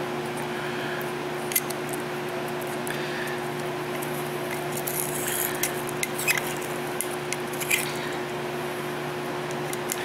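Light ticks and short scrapes of a small pocket screwdriver tip picking at an EGR valve's pintle and port, clearing carbon, over a steady hum.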